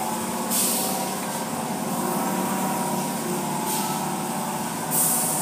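Car wash machinery running with a steady hum, broken by three short hissing bursts of spray: about half a second in, near four seconds and near the end.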